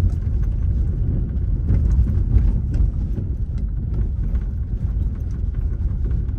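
A road vehicle driving, a loud steady low rumble with scattered knocks and rattles.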